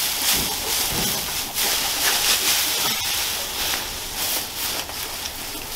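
Loose dry straw rustling and crackling as fresh bedding is tossed down and a dog moves through it, a steady dry rustle with many small crunches.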